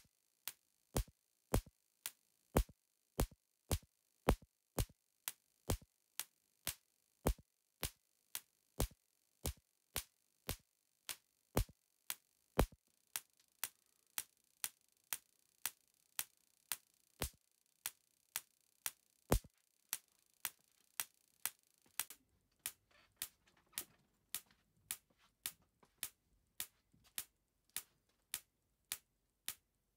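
Two Marx generators, one of opposite polarity, firing in tandem from a shared 30 kV rectified flyback supply: their spark gaps and the arc between their outputs give sharp cracks repeating at an even pace, about three every two seconds, as the capacitor stages charge and discharge.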